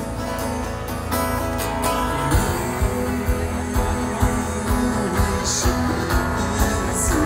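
Live rock band playing strummed guitars, with a steady drum beat coming in about two seconds in. Heard from far back in an outdoor crowd.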